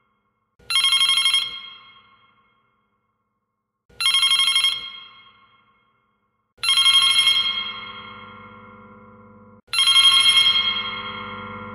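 Telephone bell ringing in separate rings about three seconds apart. There are four rings, each a short rattling trill that fades out, and the last two linger longer.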